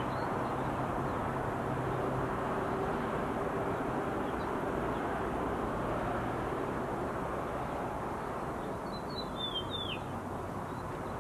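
Outdoor ambience: a steady low rush of background noise, with a bird giving a few short downward chirps about nine seconds in.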